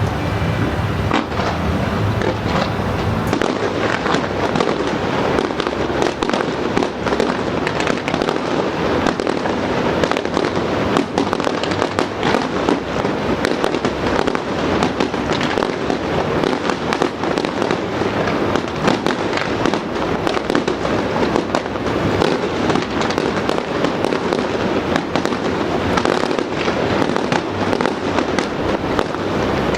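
Fireworks display going off in a dense barrage: many overlapping bangs and crackles with no pause.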